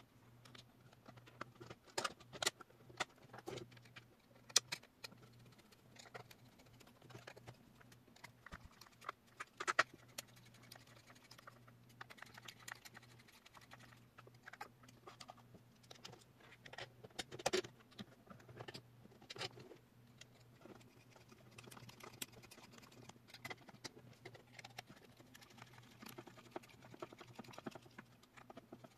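Irregular clicks, taps and small rattles of M3 bolts, a screwdriver and hard 3D-printed plastic parts being handled as geared motors are bolted into a plastic frame, with a faint steady low hum underneath.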